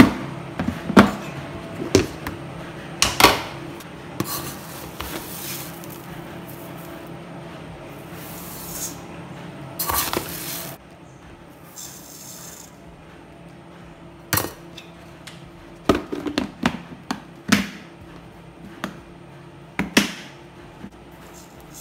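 Clear plastic storage box with snap-on latch clips being unclipped, opened and handled, giving a series of sharp plastic clicks and knocks, with a metal cup scooping and pouring raw rice grains in between, a rustling hiss. The clicks come in the first few seconds and again in a cluster near the end.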